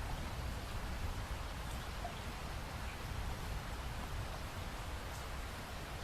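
Steady light rain falling, with a soft even hiss and a few faint drops standing out.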